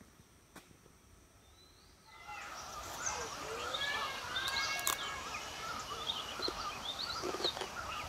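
A chorus of wild birds in hill-country forest, many birds chirping and calling over one another. It starts suddenly about two seconds in, after a quieter stretch with a few faint ticks.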